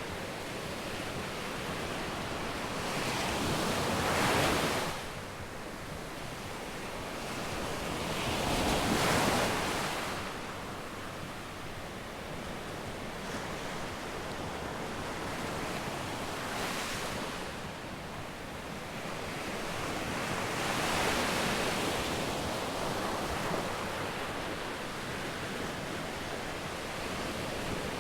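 Sea waves breaking and washing up a sandy beach, rising to a crash about four, nine, seventeen and twenty-one seconds in, with a steady hiss of surf between, and wind on the microphone.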